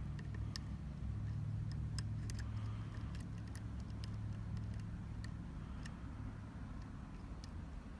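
Small sharp metallic ticks and clicks of lock picks working the pins of a Sargent Keso mortise cylinder, thick in the first three seconds and sparser after, over a steady low hum that eases after about five seconds.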